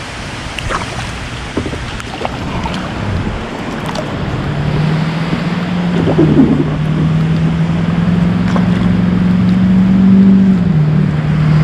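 Steady rain hiss with scattered light taps. From about four seconds in, a motor's steady low drone joins it and steps slightly lower near the end.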